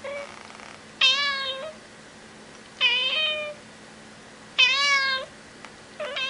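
A cat meowing over and over: a short soft mew, then three loud, drawn-out meows about two seconds apart, each rising and then falling in pitch, with another meow starting at the end.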